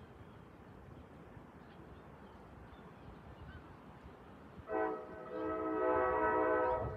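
Multi-tone train horn on the leading NJ Transit Multilevel cab car: a short blast about five seconds in, then a long steady blast, sounded as the train nears a road grade crossing. Before the horn, only faint outdoor background.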